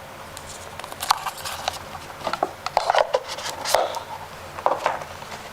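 Irregular clicks and taps of small hard items being handled and lifted out of a carrying case, starting about a second in, with the loudest knocks near the middle.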